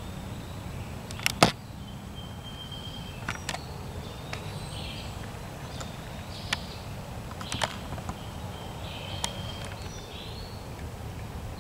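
Wet woodland ambience: sharp ticks scattered through, the loudest about a second and a half in, with short high bird calls from about three seconds on and a steady low rumble underneath.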